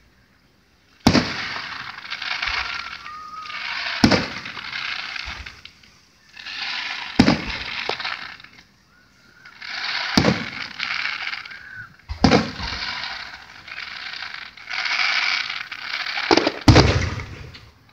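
Aerial firework shells bursting with sharp bangs roughly every three seconds, seven in all with a quick double bang near the end, each followed by a couple of seconds of crackling as the stars burn out.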